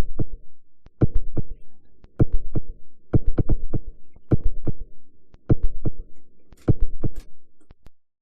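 A rhythmic run of sharp percussive knocks with deep thumps, in quick clusters about once a second, that stops suddenly near the end.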